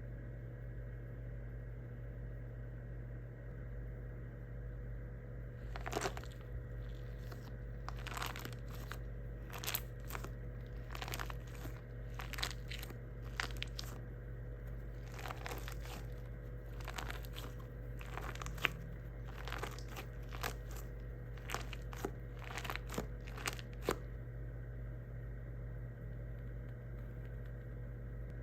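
Irregular crinkling and crunching as cheap squishy toys are squeezed and handled, in scattered bursts from about six seconds in until near twenty-four seconds, over a steady low hum.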